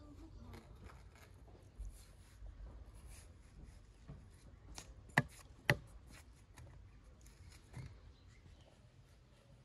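A knife cutting a watermelon into slices: soft crunches and scrapes of the blade through the rind, with light knocks, and two sharp knocks about half a second apart just past the middle.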